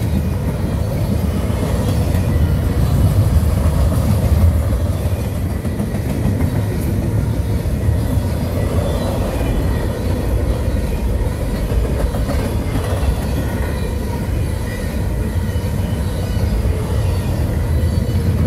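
CSX double-stack container train's well cars rolling past: a steady, loud rumble of steel wheels on rail with a few faint clicks.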